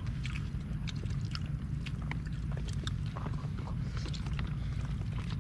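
People eating: scattered small clicks and chewing sounds over a steady low rumble.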